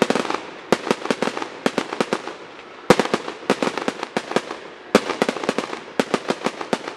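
Fireworks going off: rapid strings of sharp cracks and pops, with heavier bangs at the start, about three seconds in and about five seconds in.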